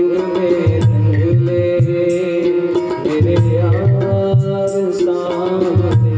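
Instrumental interlude of a Hindi devotional bhajan: a held melody line with sliding notes over a steady drum rhythm.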